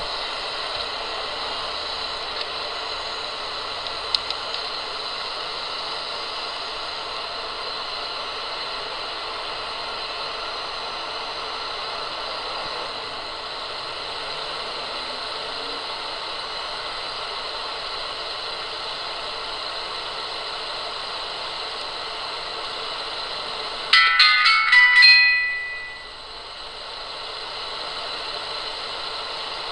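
Steady hiss throughout. About 24 s in, a short electronic chime plays: a quick run of about five pitched beeps ending in a held tone that fades out.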